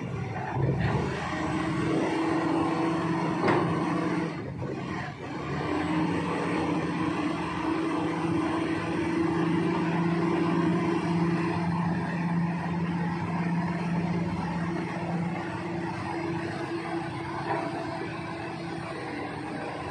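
Diesel engine of a Komatsu D85E-SS crawler bulldozer running hard as it tracks through deep mud, with an excavator's engine running alongside. The engine sound dips briefly about four to five seconds in, then picks up again.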